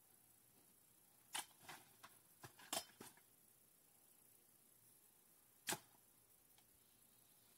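Faint, distant sharp chops or snaps as a man hacks at dense plants by hand: a quick run of about five between one and three seconds in, then a single one later, with quiet between.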